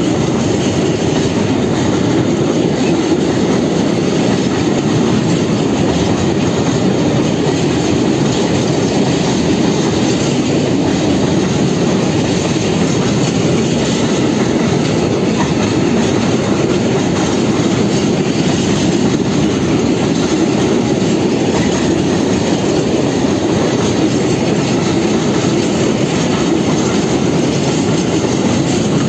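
Long freight train of Eas-type open high-sided wagons rolling past close by, with the steady rolling noise of steel wheels on the rails.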